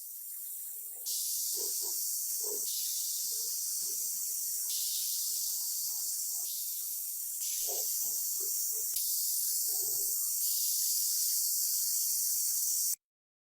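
Steady high spraying hiss in a series of short clips that cut every second or two, with faint clinks and knocks underneath. It cuts off suddenly about a second before the end.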